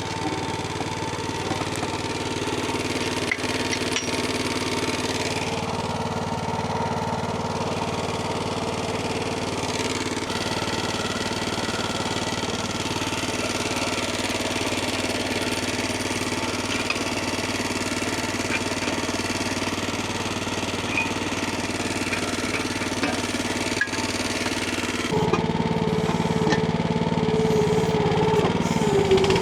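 Engine running steadily, then louder with a higher, fuller note from about 25 seconds in, as if the throttle or load went up.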